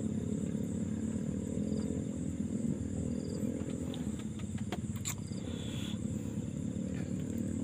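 Night-time waterside ambience: a steady low chorus-like drone, a steady high insect whine above it, and a few short high chirps. A couple of faint clicks come about five seconds in.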